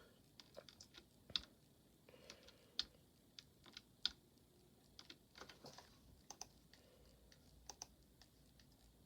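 Faint, irregular clicks and taps, about twenty of them unevenly spaced, with near silence between.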